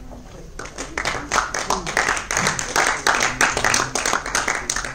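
Audience clapping, starting about half a second in and continuing as a dense patter of hand claps.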